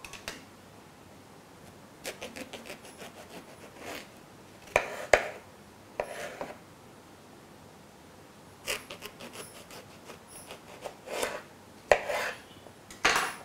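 A knife cutting through a firm raw eggplant on a wooden chopping board in short bursts of quick crunchy strokes, with a few sharp knocks of the blade on the board.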